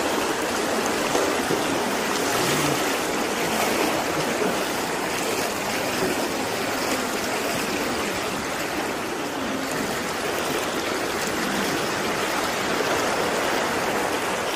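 Floodwater flowing fast down a street, a steady noise of running water like a stream.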